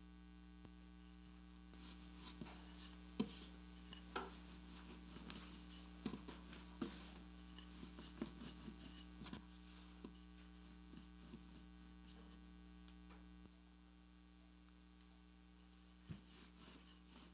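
Faint steady electrical hum, with quiet scattered knocks and rubbing from a wooden rolling pin rolling out puff pastry on a floured counter, from about two seconds in until a little past the middle, and one more knock near the end.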